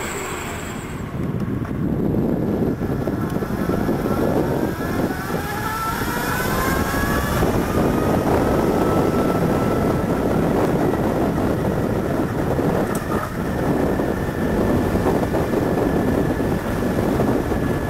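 Converted Derbi GPR-50 electric motorcycle pulling away from a stop, its axial-field DC motor and drive whining and rising in pitch as it picks up speed, then holding a steady whine. Heavy wind buffeting on the microphone and road noise run underneath.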